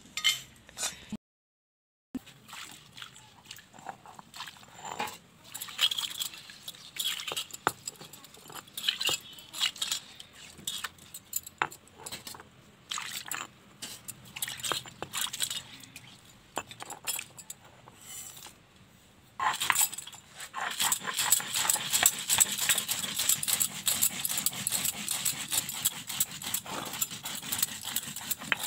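Spices being ground by hand on a sil-batta: the stone roller scrapes and rolls over the flat grinding stone, crushing dry-roasted cumin seeds and red chillies with water into a paste. The strokes are scattered at first and become steady and continuous about two-thirds of the way in.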